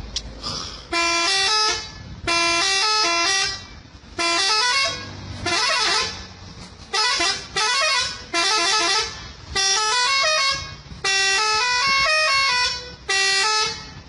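Isuzu self-loader truck's multi-tone musical air horn playing a tune: about ten loud blasts with short gaps between, each a quick run of notes stepping up and down in pitch.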